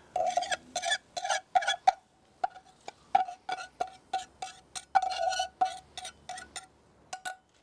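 Stainless steel saucepan being tapped and scraped out over a stainless steel mixing bowl to empty minced onion and garlic: a quick, irregular string of short metallic clinks, each ringing briefly at the same pitch, stopping shortly before the end.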